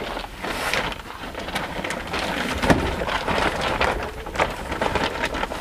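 Fabric cover holding an inflatable mattress rustling and crinkling as it is unfolded and spread across a plywood bed platform, with a bump about halfway through.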